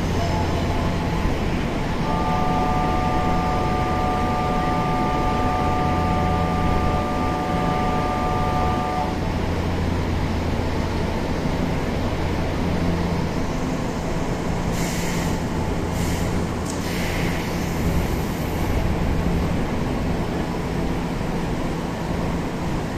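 Trains at a station platform, with a steady low hum throughout. About two seconds in, a chord of several steady tones starts and holds for about seven seconds. Later come a few short bursts of hissing.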